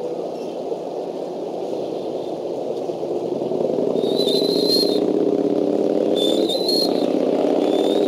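A low, steady engine drone that grows louder about halfway through, with three short, high, thin whistled calls over it, one about every two seconds.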